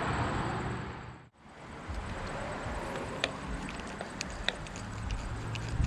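Scattered light clicks and taps, as of small parts being handled during wiring and fitting work, over a steady low hum. The sound dips out briefly about a second in, then comes back.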